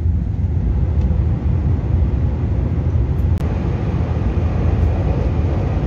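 Steady low rumble of running noise inside the passenger cabin of a TRA EMU3000 electric multiple unit travelling at speed. A single click about three and a half seconds in, after which the noise carries a little more hiss.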